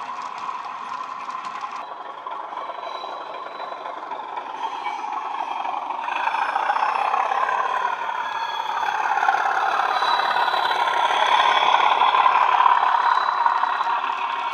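Bachmann OO-gauge Class 37 model locomotive's sound decoder playing diesel engine sound, with the model's wheels rattling over the track. It grows louder from about six seconds in as the locomotive approaches, is loudest a couple of seconds before the end, then eases as it passes.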